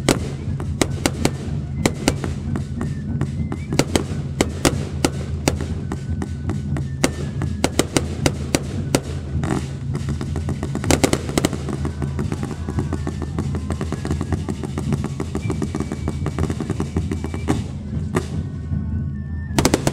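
Fireworks crackling: many sharp cracks and pops in quick succession, with a few heavier bangs about halfway through, over a steady low rumble. The crackling thins briefly near the end, then picks up again.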